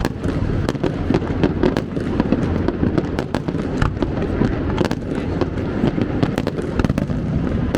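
Fireworks display going off: a rapid, continuous stream of sharp cracks and pops over a steady low rumble of bursts.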